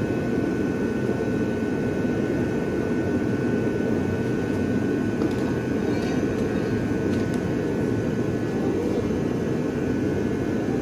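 Steady machine drone: an even low rumble with faint steady high whine tones above it, and a few faint clicks.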